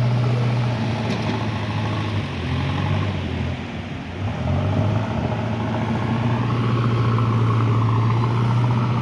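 Motor vehicle engine running close by, a steady low hum whose pitch dips and wavers between about two and five seconds in, then holds steady again.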